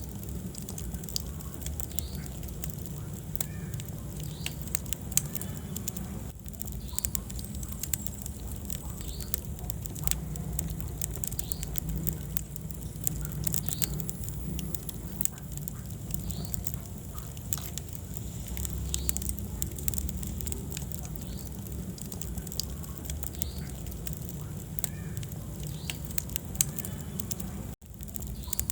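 Wood fire burning in a fireplace: constant irregular crackling and popping over a steady low rumble of the flames. There is a momentary gap in the sound about a second before the end.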